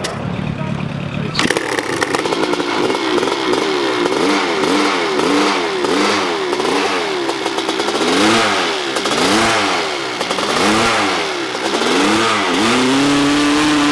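Modified hill-climb dirt bike engine being revved hard, starting abruptly about one and a half seconds in. The throttle is blipped over and over, so the pitch rises and falls about once a second, and near the end the engine is held at a steady high rev.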